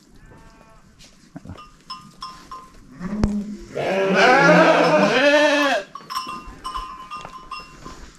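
Sheep bleating in a barn: a faint short bleat near the start, then one loud, quavering bleat about two seconds long around the middle.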